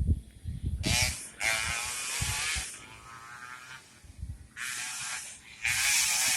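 Racing motorcycles at high revs passing one after another, a high, wavering engine sound coming and going four times. There are low thumps near the start.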